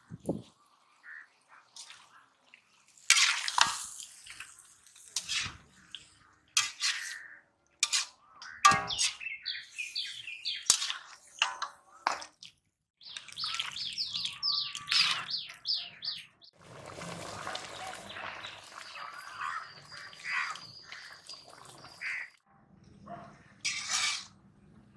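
A long-handled metal ladle stirring and scraping through wet turkey curry in an iron kadai, in scattered scrapes and knocks. Birds chirp in between.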